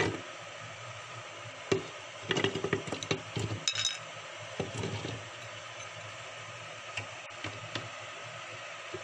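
Pieces of fresh coconut are dropped by hand into a mixer-grinder jar, making a run of light knocks and clinks against the jar. They are busiest between about two and five seconds in, over a steady hiss.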